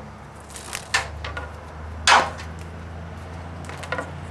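Handling noise from peeling the slit insulation jacket off a stripped 14-gauge copper wire: a few short sharp clacks and scrapes, the loudest about two seconds in, over a steady low hum.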